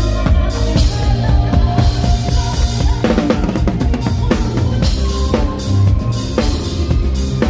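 Live band music: a drum kit playing with steady bass-drum and snare hits under sustained instrument chords and a heavy bass line.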